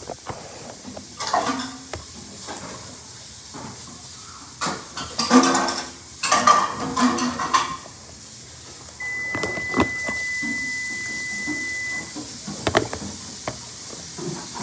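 Utensils clinking and scraping in a plastic container of cake batter, with brief murmured children's voices. A steady high tone sounds for about three seconds in the second half.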